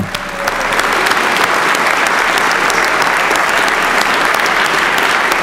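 A round of applause from a roomful of people clapping, breaking out all at once and holding steady.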